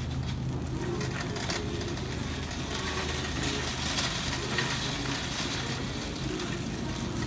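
Wire shopping cart rolling along, its basket and casters rattling with a stream of light clicks, over a steady low hum.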